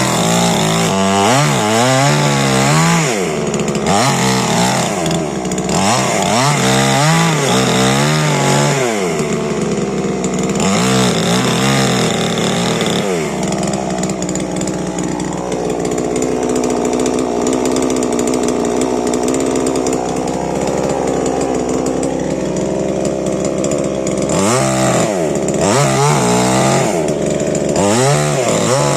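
Stihl MS 881 two-stroke chainsaw revving up and down again and again, the engine pitch rising and falling every second or so. In the middle it holds at a steadier, lower pitch for about ten seconds, then revs up and down again near the end.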